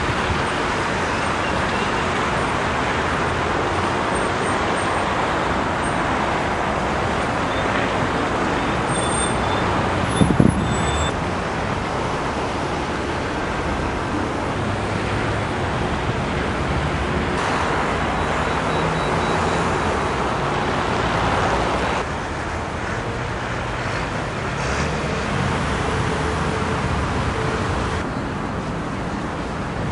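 Steady city road traffic noise, many cars and buses running on a busy street, with one short louder sound about ten seconds in.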